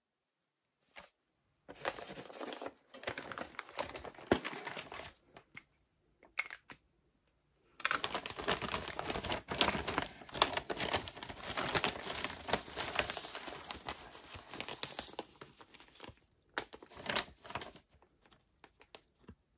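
Plastic poly mailer crinkling and rustling as hands handle it and work it open. The crinkling comes in bursts: a few seconds of it early, a long busy stretch in the middle, and a short burst near the end, with brief quiet gaps between.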